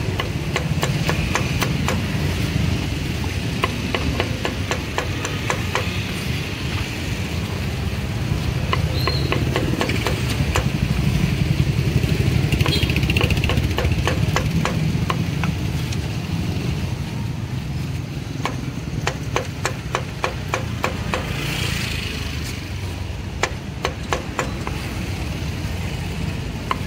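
A meat cleaver chopping roasted pork ribs on a thick wooden chopping block, in runs of quick knocks several a second. A steady low rumble of traffic engines runs underneath.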